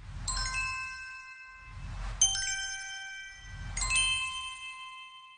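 Logo intro sound effect: three swelling whooshes with a low rumble, each ending in a cluster of bright chiming tones that ring on and die away, the last fading out near the end.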